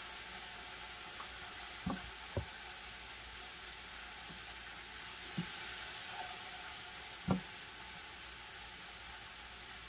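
Battered chicken deep-frying in vegetable oil: a steady sizzle with a few short pops, the loudest about seven seconds in.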